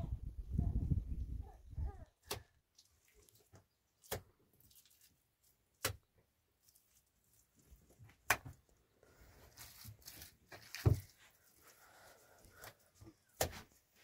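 A series of six sharp knocks, spaced roughly two seconds apart, after a low rumbling noise in the first two seconds.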